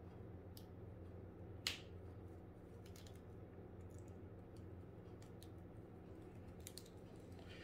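Faint scattered plastic clicks as the swappable hands of a Marvel Legends Spider-Man action figure are pulled off and pegged onto its wrist joints, with one sharper click about one and a half seconds in. A low steady hum runs underneath.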